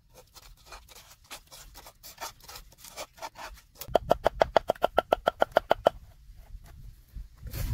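A cleaver chopping rapidly on a wooden chopping board, mincing onion: about nine sharp strokes a second for some two seconds, each with a short metallic ring. Before it come faint, irregular scrapes and taps of a sauce being stirred in a clay mortar with a stalk.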